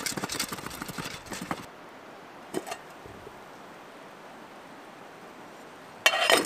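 Popcorn kernels popping in a lidded metal pot over a campfire: a rapid run of pops for the first second and a half, and one more pop about a second later. Near the end, a metal pot lid clinks with a short ringing as it is lifted.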